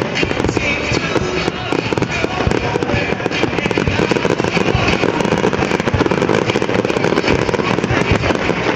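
Fireworks display going off in a rapid, unbroken run of pops, bangs and crackle from shells bursting and effects firing low over the water.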